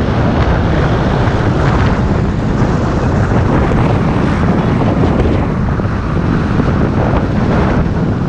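Wind buffeting the microphone over the steady noise of a moving bus.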